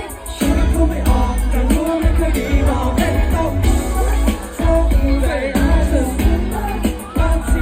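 Pop song with singing over a heavy bass beat.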